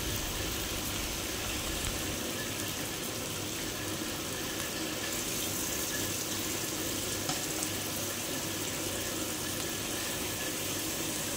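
Butterflied chicken in thick chilli-and-coconut spice paste sizzling steadily in a hot pan, with a couple of faint clicks from metal tongs.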